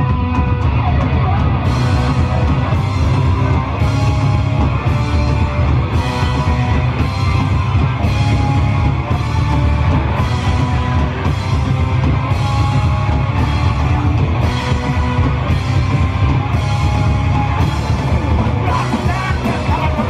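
Punk rock band playing live and loud, with electric guitars, bass, keyboard and drums. From about two seconds in, a cymbal crashes about once a second on the beat.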